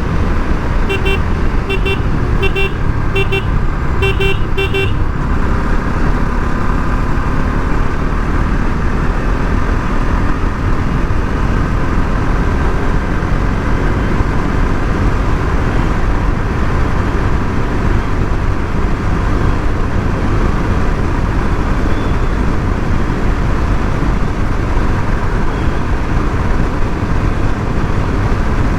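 Steady riding noise from a Bajaj Pulsar RS 200 on the move, its single-cylinder engine under wind rush at the helmet-mounted mic. About a second in, a vehicle horn beeps in quick short taps, several pairs over some four seconds, then stops.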